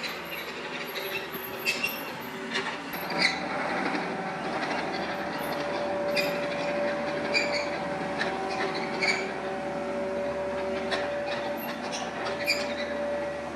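Kubota KX91-2 mini excavator working: its diesel engine running under load with a steady hydraulic whine, and repeated sharp metallic clanks and squeaks from the bucket and boom linkage as it scrapes and spreads gravel.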